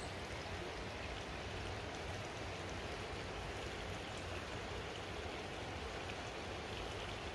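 Steady rush of running water, an even hiss with no change.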